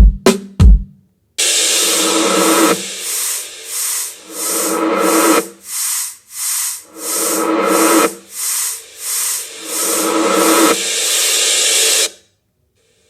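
The last thumps of a drum beat, then a loud hissing noise that pulses about twice a second in slow swells for about ten seconds and cuts off suddenly near the end.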